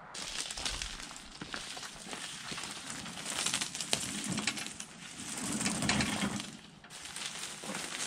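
Dry leaves and brush rustling and crackling in a steady hiss, swelling twice, about halfway through and again near the end.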